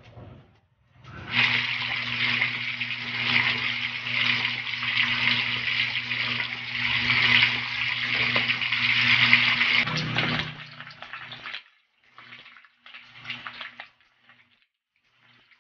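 Whole fish frying in a pan of hot oil, giving a dense, steady sizzle with faint crackles. The sizzle stops about ten seconds in, and quieter broken spurts of sizzling follow to the end.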